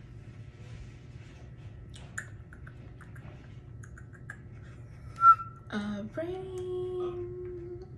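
Light taps and clicks of fingers on a tablet's touchscreen. About five seconds in, a short sharp high tone, then a steady held note lasting about two seconds.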